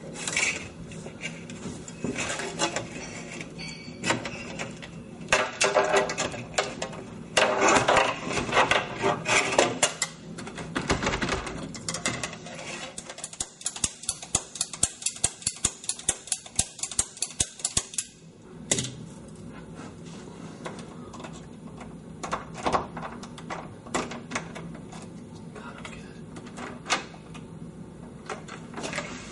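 Locksmith's metal tools clicking and scraping at a house door lock to get it open. The clicks and rattles come in irregular bursts, with a fast run of small clicks in the middle.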